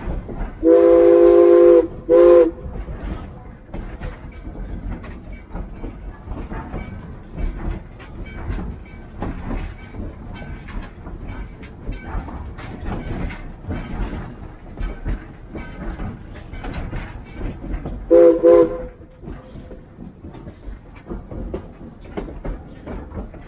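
Steam locomotive whistle blowing a long blast then a short one a couple of seconds in, and another short blast near the end, over the steady clatter and knocking of the train running on the rails.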